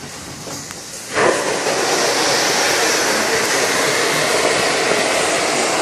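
Narrow-gauge steam locomotive venting steam: a loud, steady hiss that starts suddenly about a second in.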